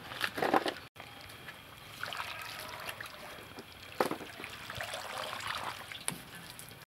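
Water sloshing, splashing and dripping as a whole duck carcass is dunked in a large wok of water to scald it for plucking, with a few sharper splashes.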